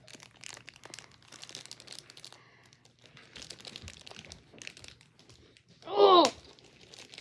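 Crinkling and small clicks of plastic packaging being worked at by hand: a package of spare keycaps that is very hard to open. About six seconds in, a short vocal exclamation is the loudest sound.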